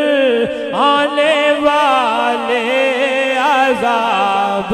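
A man singing an Urdu naat into a microphone, drawing out long melismatic notes whose pitch glides up and down, over a steady sustained drone.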